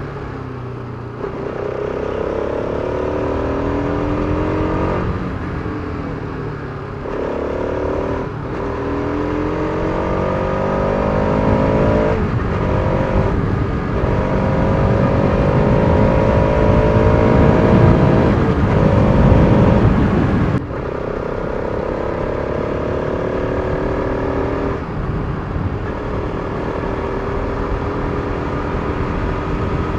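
Bajaj Pulsar RS200's single-cylinder engine under way, pulling hard and rising in pitch, then dropping back at each upshift; this happens several times as the bike accelerates through the gears, with a brief easing of the throttle about two-thirds of the way through.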